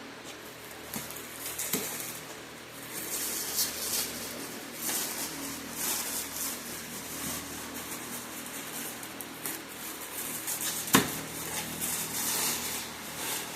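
Plastic wrapping crinkling and rustling while objects are shifted and handled on a table, with one sharp knock about eleven seconds in.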